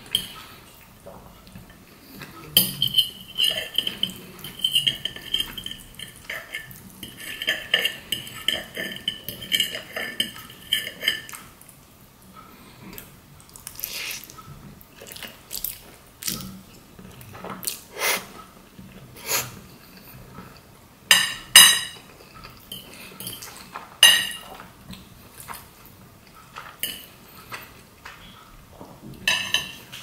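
Metal fork scraping and clinking on a ceramic plate while twirling spaghetti in tomato meat sauce, with ringing scrapes in the first part. After that come scattered sharp clinks and the wet sounds of a forkful of noodles being eaten.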